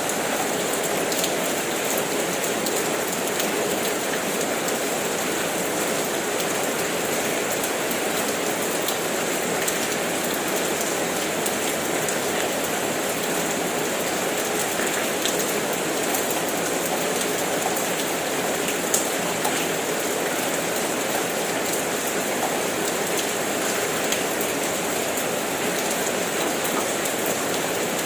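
Steady rain falling: an even hiss with scattered sharp ticks of drops striking a surface, and one slightly louder tap about two-thirds of the way through.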